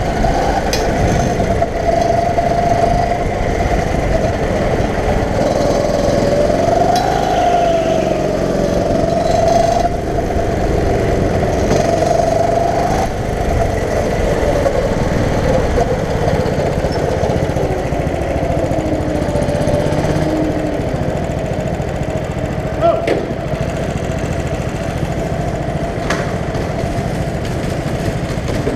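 Go-kart's small engine running hard on track, its note rising and falling as the kart speeds up and slows for corners, then holding steadier in the second half. A single sharp click about 23 seconds in.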